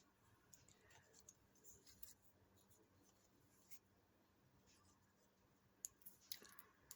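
Faint rustles and light taps of small cardstock die-cut pieces being handled and placed on a card, with a few light clicks close together near the end.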